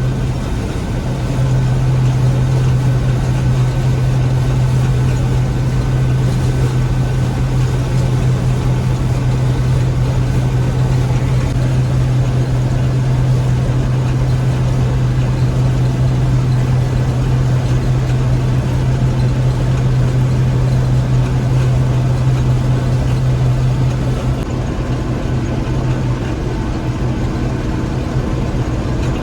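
Gleaner M3 combine running steadily while harvesting wheat: a loud, continuous machine drone with a strong low hum. About 24 seconds in the hum eases and the sound drops a little.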